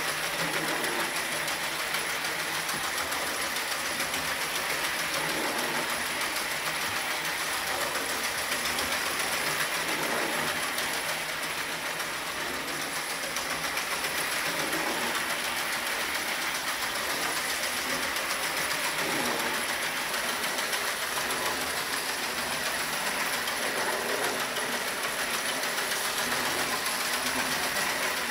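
Marx 490 toy steam locomotive fitted with a chugger running laps of an O27 tinplate three-rail loop, pulling small freight cars. Its electric motor whirs steadily and its wheels clatter on the track, with a soft repeating chuff from the chugger.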